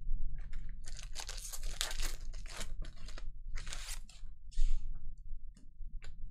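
Foil trading-card pack wrapper torn open and crinkled by hand: a rough tearing and crackling for about two and a half seconds, then a few shorter crinkles.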